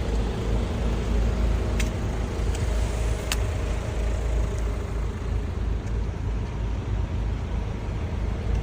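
Vehicle engine running with a low rumble and a steady hum, with a few faint clicks.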